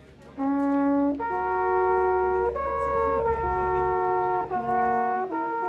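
Background music: brass instruments playing held chords that change every second or so, starting about half a second in.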